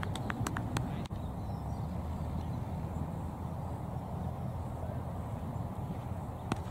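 Low, steady rumble of wind on the microphone across an open playing field. A quick run of sharp claps or clicks fades out in the first second, and a single sharp knock comes near the end.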